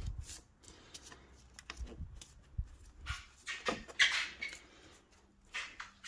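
Light clicks and rubbing from hands fitting plastic air-intake ducting, with a few short squeaks, the loudest cluster a little past the middle.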